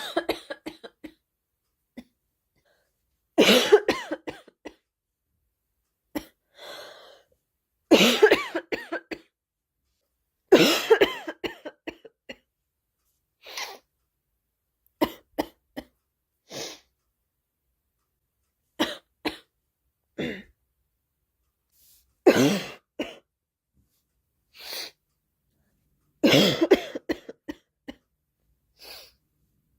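A girl coughing in repeated fits a few seconds apart, each fit a quick run of several coughs, with quieter breaths between some of them.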